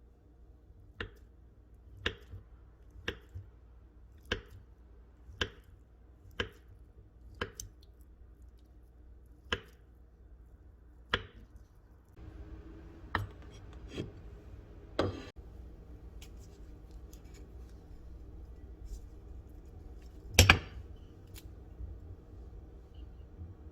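Food being cut in a kitchen: sharp cutting strokes about once a second, then more sparsely, with one louder knock about twenty seconds in.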